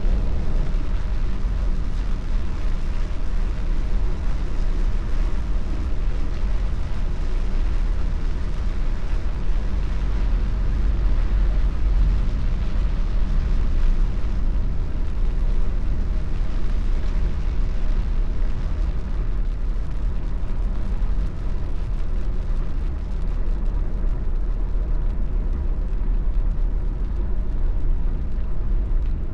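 Steady low road rumble of a car driving, heard from inside the cabin: engine and tyre noise on a wet road, with a hiss above the rumble that thins somewhat in the second half.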